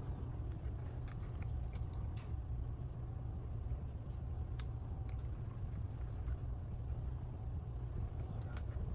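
Steady low background hum with faint, scattered small clicks from handling small phone parts and tools during the screen fitting.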